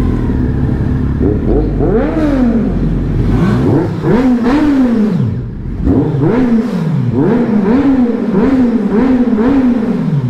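Kawasaki Z750 inline-four motorcycle engine revving up and down again and again as the throttle is opened and closed, with quicker, shorter rises and falls in pitch in the second half.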